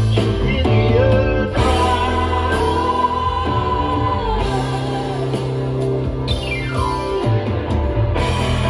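Live rock band playing, with electric guitar and bass under sustained sung vocals. A long falling sweep runs down from high to low about six seconds in.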